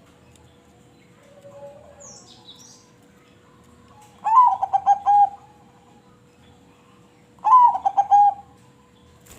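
Zebra dove (perkutut) cooing: two phrases about three seconds apart, each a quick run of rhythmic notes that opens with a rising note.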